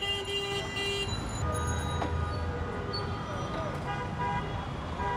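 Street traffic with vehicle horns honking: one horn held for about a second at the start and shorter honks later, over a low engine rumble.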